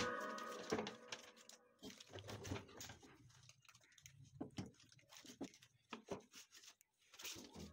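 Faint, irregular clicks and rustles of electrical leads, crocodile clips and a small plug being handled. Background music fades out in the first second.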